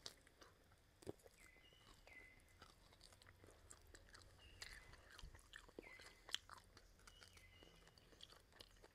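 Faint chewing and biting on grilled pork ribs: soft, scattered wet mouth clicks as the meat is pulled from the bone with the teeth.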